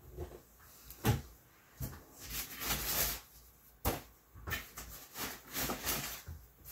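Hard plastic graded comic-book slabs and packaging being handled: a few sharp clacks, the loudest about a second in and near four seconds, between stretches of rustling.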